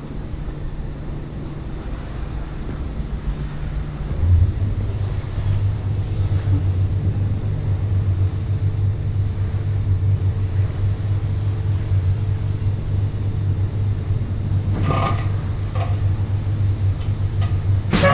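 Kenworth T600B tractor unit's diesel engine idling steadily, its low note getting deeper and louder about four seconds in. Near the end come a short noisy burst and then a sharp knock.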